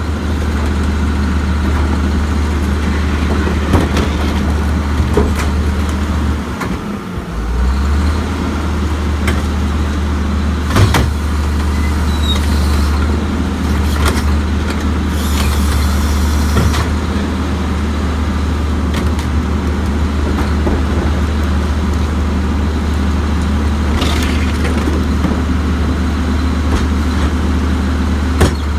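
Diesel engine of a Crane Carrier garbage truck with a Leach rear-loader body running steadily, its level dipping briefly about seven seconds in. A few sharp knocks and bangs come from the hydraulic cart tippers lifting and dumping plastic wheeled carts into the hopper.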